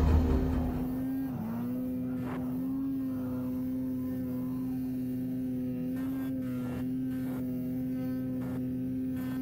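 An engine running at steady high revs, its pitch sagging briefly and recovering a few times, with faint clicks now and then.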